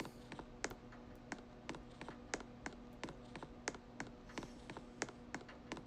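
A steady run of light, sharp clicks, about three a second, over a faint steady hum.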